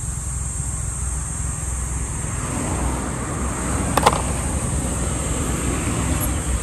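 Road traffic: a car passing on the road, swelling from about two and a half seconds in, over a steady low rumble. A single sharp click about four seconds in.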